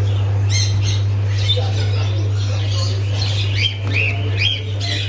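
Caged birds chirping and squawking in quick, overlapping short calls, with a few sliding calls near the end, over a steady low hum.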